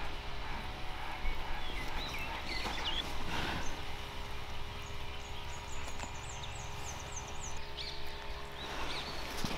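Outdoor rural ambience: small birds chirping now and then, with a quick rapid trill a little past the middle, over a low steady rumble and a faint steady hum.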